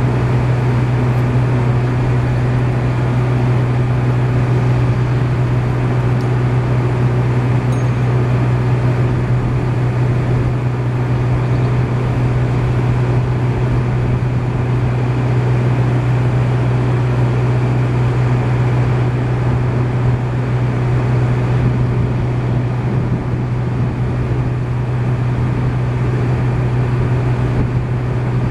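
An engine running steadily at a constant speed: an even, unchanging low drone.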